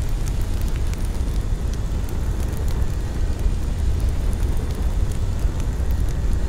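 Steady low rumble of wind buffeting the microphone, with faint scattered clicks.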